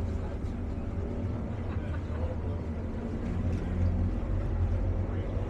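Tour boat's engine running steadily with a low drone that swells a little about four seconds in.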